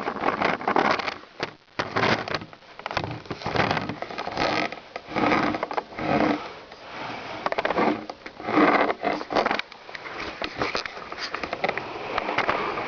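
Repeated sniffing and breathy puffs close to the microphone, in short bursts about a second apart.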